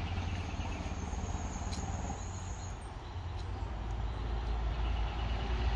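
An insect's thin, high, steady call for the first two or three seconds over a steady low rumble, with a few faint clicks of a spoon serving food from a metal pot.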